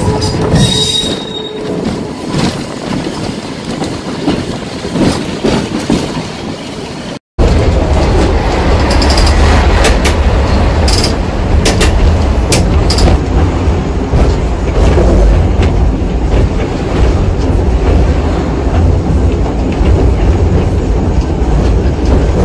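Open electric tramcar of the Sintra tramway running along its track, a steady rumble of wheels on rail with short high wheel squeaks and clicks. The sound drops out for a moment about seven seconds in, then the rumble comes back louder.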